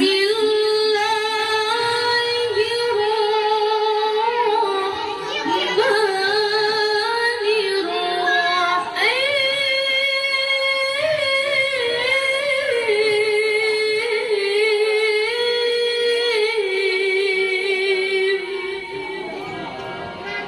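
A woman reciting the Quran in melodic tilawah style, one unaccompanied voice holding long notes with ornamented turns and slides between them. The voice fades away near the end.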